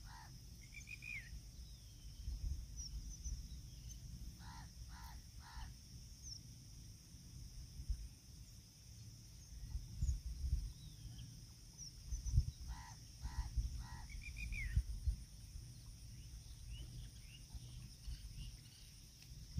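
Crows cawing in runs of three short caws, about five seconds in and again near thirteen seconds, with another bird giving two brief rising chirps. Under it, a low gusty rumble of wind on the microphone.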